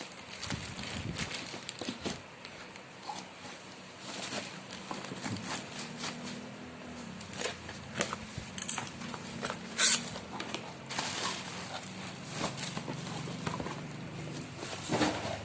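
Packaging being handled during an unboxing: irregular crinkling, rustling and small clicks, with one sharper click about ten seconds in.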